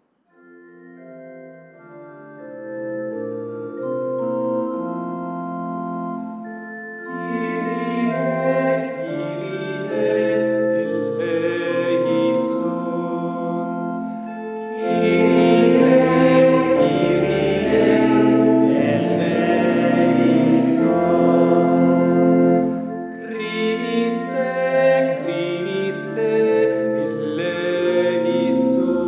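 Church organ playing slow, held chords. It starts softly, fills out with higher notes, and grows loudest about halfway through with deep bass notes.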